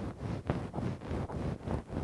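ASMR ear-cleaning trigger: fast, rhythmic rubbing against the microphone, about five strokes a second, a pulsing low whoosh like a helicopter's beat.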